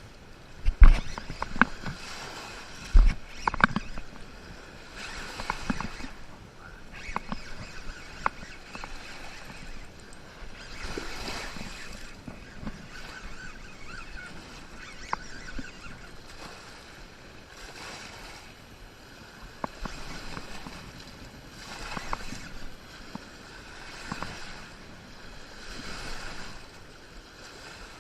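Water washing in slow swells about every two seconds, with two loud knocks near the start.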